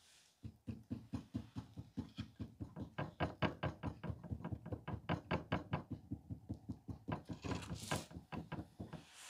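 Rapid, even tapping on the clay head of a sculpture as it is beaten and patted into shape, about four to five dull knocks a second. A brief rustle comes near the end.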